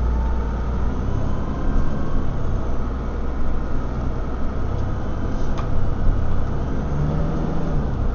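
Steady low drone of a DAF DB250LF double-decker bus's engine and running gear, heard from inside the passenger saloon.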